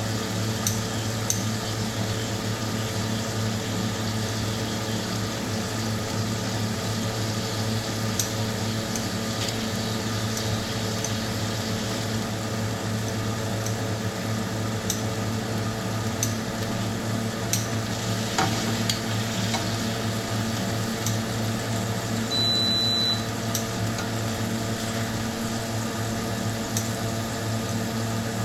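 Beef heart sizzling in a hot pan over a steady hum, with scattered small clicks and one short high beep about three-quarters of the way through.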